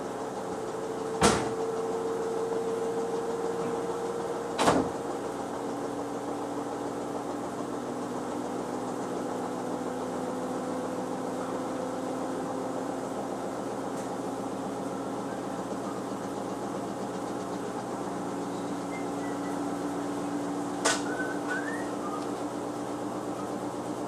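Front-loading washing machine running, a steady motor hum whose pitch shifts slowly, with three sharp knocks: about a second in, at about five seconds, and near the end.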